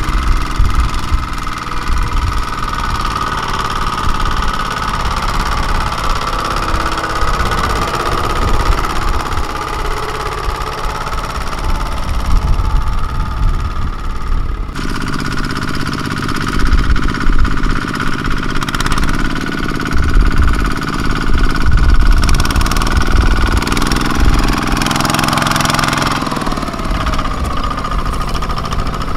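Single-cylinder diesel engines of two-wheel walking tractors running steadily under load as they haul trailers of rice sacks through the field. The engine sound changes abruptly about halfway through, as a different tractor takes over.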